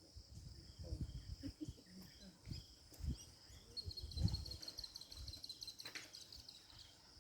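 Bush ambience: insects keep up a steady high drone. About four seconds in, a bird gives a rapid trill of many quick notes lasting about two seconds, and faint low thuds and rumbles come and go, the loudest just after the trill begins.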